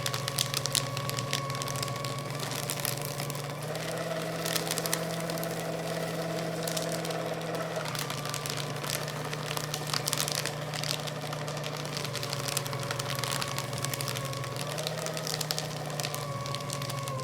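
Electric paper shredder motor running with a steady hum while it cuts through thick stacks of paper, the paper crackling and tearing throughout. The motor's pitch steps up about four seconds in and drops back about four seconds later as the load on the cutters changes.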